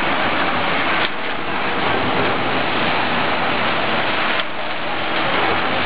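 Industrial bag-closing sewing head stitching shut the tops of filled sacks as they pass on a conveyor: a loud, steady, dense machine noise with two brief dips in level, about a second in and again near four and a half seconds.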